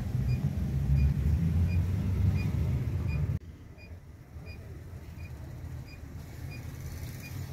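Low rumble of a coach bus heard from inside the passenger cabin, with a faint short high beep repeating at a steady quick pace. The rumble drops sharply about three and a half seconds in.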